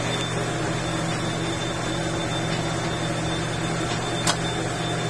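Metal lathe running with a long steel bar turning in it: a steady mechanical hum, with one sharp click about four seconds in.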